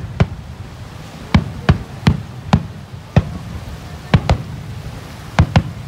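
Aerial firework shells bursting in a rapid finale barrage: about ten sharp booms in irregular succession, some in close pairs, over a continuous low rumble.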